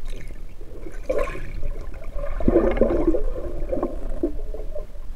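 Muffled underwater gurgling and bubbling around a submerged microphone, in uneven bursts, with a dull knock about two and a half seconds in.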